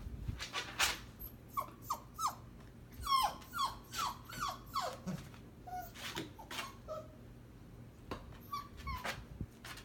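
Siberian husky mother and seven-week-old puppy play-fighting: a quick run of short, high yelps, each falling in pitch, from about one and a half to five seconds in, with a few more later, among scuffling knocks.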